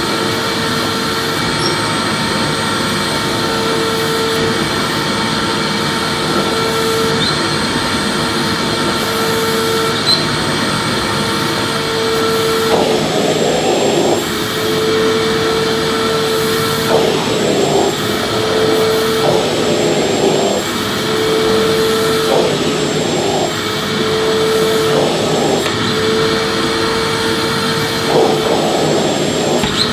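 Vacuum cleaner running steadily, its motor giving a continuous rushing noise with a steady hum tone. From about halfway the sound swells briefly every second or two.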